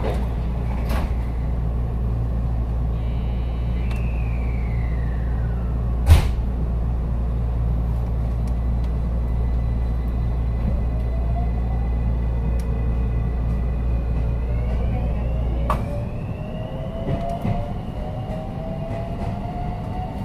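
JR West 223 series 6000-subseries electric train starting from a station, heard from inside the car: a steady low hum while standing and a sharp clack about six seconds in. From about ten seconds in, the inverter and traction motor whine rises slowly in pitch as the train accelerates. The low hum drops away near the end.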